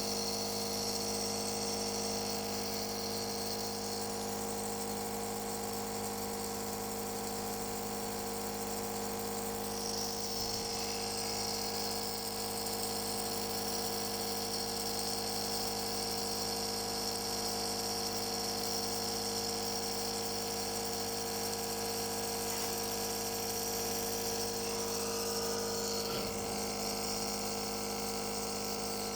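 Compressor nebulizer running: a steady small electric motor hum with a high hiss of air. The hiss grows louder about a third of the way through.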